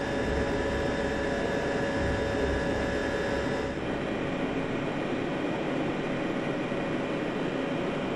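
BMW car engine running at a steady speed on a dynamometer test bench under load, a steady mechanical drone with a few level tones. The sound changes character abruptly about four seconds in.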